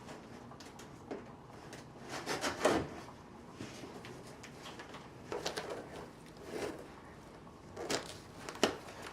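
Cardboard shipping box being handled and opened: scattered scrapes, rustles and knocks, loudest about two and a half seconds in, with two sharper knocks near the end.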